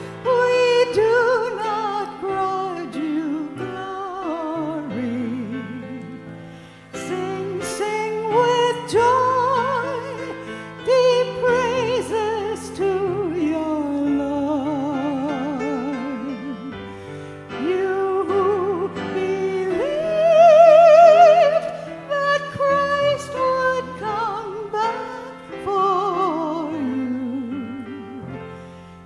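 A solo voice singing a hymn with wide vibrato over sustained keyboard chords.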